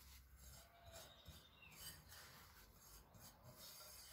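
Faint rubbing and rasping of coarse semolina mixed with a little oil, worked between the fingers in a plate.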